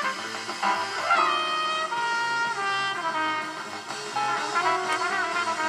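Jazz playing on a background radio, with horns carrying the tune.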